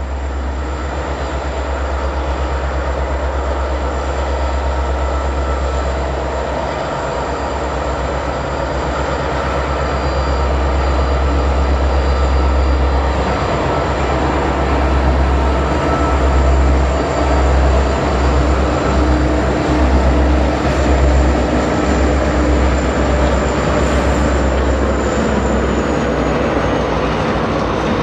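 Diesel freight locomotives rolling slowly past, engines running with a heavy low rumble that swells and pulses from about halfway through. A thin, high steady whine runs over it and dips slightly in pitch near the end.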